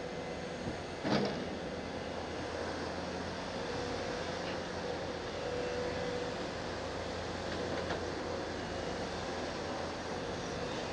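Backhoe loader engine running steadily, with a sharp clank about a second in.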